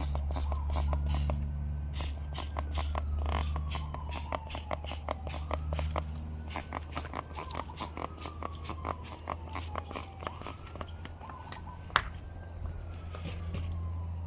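Rhythmic scrubbing strokes, about three a second, fading out after about ten seconds, over a steady low hum. A siren slowly rises and falls in the distance, and a single sharp click comes near the end.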